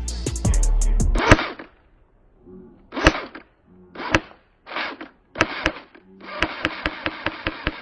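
Airsoft gun firing: sharp single pops about a second apart, then a quicker run of pops near the end.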